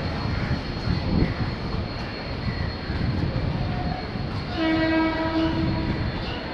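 Train running on the rails with a steady rumble; about four and a half seconds in, the WAP-7 electric locomotive's horn sounds once for about a second and a half.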